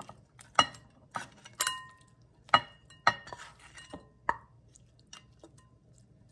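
Wooden spatula and frying pan knocking against a glass bowl while stir-fried lobster and vegetables are scraped out of the pan: a string of sharp clinks, about eight in the first four and a half seconds, several followed by a brief ring of the glass, then a few faint taps.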